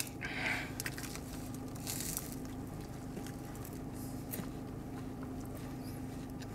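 Faint biting and chewing of a caramel wafer candy bar, over the steady low hum of a car's cabin.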